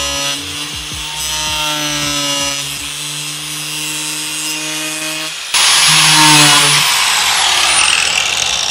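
Angle grinder with a cut-off disc running and cutting through a plastic car bumper, a steady motor whine. About five and a half seconds in, the sound changes abruptly to a louder rushing hiss with a high whine that slowly falls.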